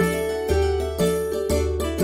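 Background music: a light melodic tune with a steady beat, about two beats a second.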